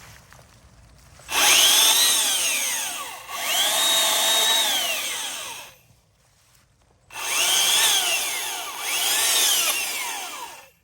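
Stihl MSA 300 battery chainsaw running in two bursts, about a second apart, as it cuts wood. In each burst the electric motor's whine rises to full speed and falls away twice.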